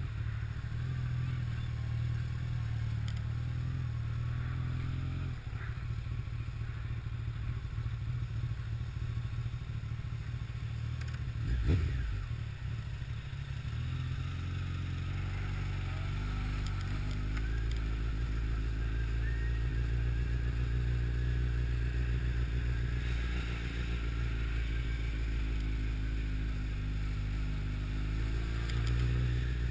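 Honda CBR1100XX Blackbird inline-four motorcycle engine running steadily as the bike rolls slowly through traffic, with a single sharp knock about twelve seconds in.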